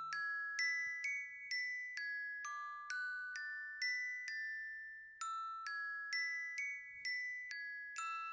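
Timer alarm sounding as a bell-like chime melody. Struck, ringing notes come about two a second, and the short tune plays twice with a brief gap between. The last note rings on and fades away.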